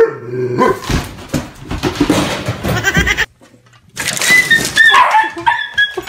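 A Weimaraner barks once at the start, followed by more animal cries and noise. After a short break a little past the middle, a run of short, high-pitched animal cries that bend in pitch.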